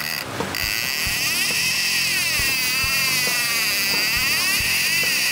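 Conventional trolling reel screaming as line strips off against the drag, a high wavering whine that rises and falls with the speed of the run and starts about half a second in. The run is hard and fast, which the crew takes for a wahoo. An outboard engine runs underneath.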